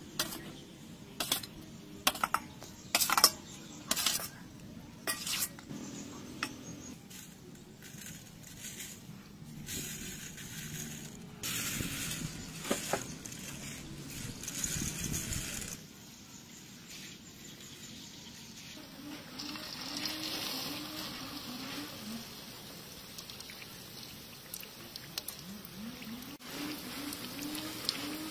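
Utensils clinking against a pot and liquid being ladled and poured over a whole chicken, then a steady sizzle of hot oil as the sesame-coated chicken fries. Near the end a low warbling tone repeats faintly over the sizzle.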